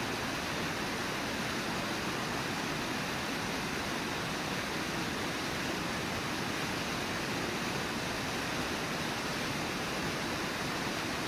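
Steady rush of water pouring over a small waterfall into a river pool.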